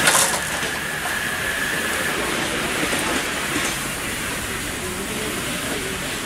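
Miniature railway train running: a steady hiss and rumble with a sharp metallic clack right at the start and a thin high wheel squeal that fades out within the first two seconds.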